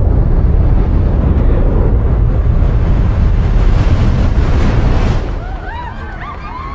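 Towering tsunami wave in a film soundtrack: a loud, deep rumble of rushing water. About five seconds in it drops to a quieter rumble with high, wavering cries over it.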